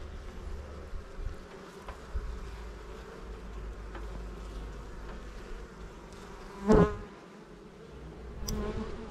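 Honeybees buzzing steadily around an opened hive as a brood frame is lifted out. A brief, louder buzz comes about two-thirds of the way in, and a weaker one near the end, as bees fly close past.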